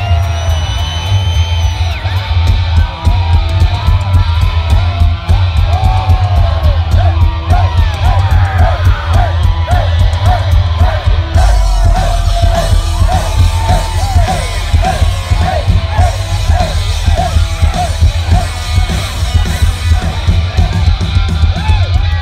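Live rock band playing loud, with electric guitar and heavy bass, heard from inside the crowd, with people yelling and singing along close by.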